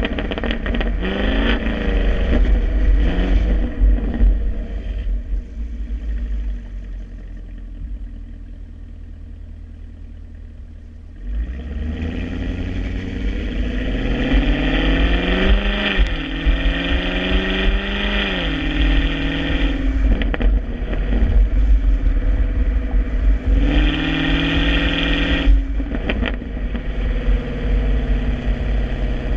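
Stock exhaust of a 2016 Chevrolet Camaro SS's LT1 6.2-litre V8, revving up and down for the first few seconds. It settles into a quieter lull, then about eleven seconds in opens up again hard. Several rising runs in pitch follow, each dropping back in steps.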